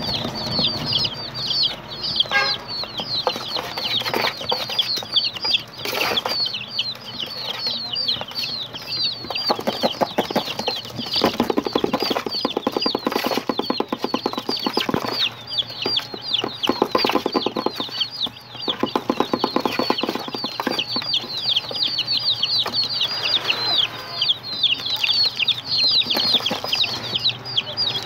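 A boxful of baby chicks peeping continuously, many short high calls overlapping, each sliding down in pitch, with bursts of rustling and scuffling among them.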